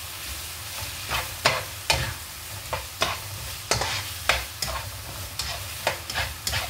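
Chicken pieces and chopped tomato sizzling in a hot wok while a silicone spatula stirs and scrapes them, in quick irregular strokes of about two a second over a steady frying hiss.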